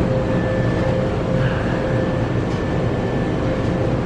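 Steady mechanical hum and rumble of restaurant machinery, with a thin steady whine over it.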